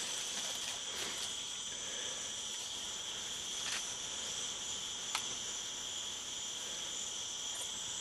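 Insect chorus: a steady, high-pitched drone in two bands, with two faint clicks partway through.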